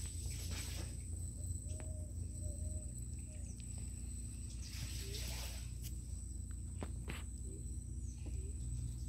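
Rowboat oars working through still water, a soft swish every four to five seconds with a few sharp wooden knocks, over a steady high-pitched insect drone.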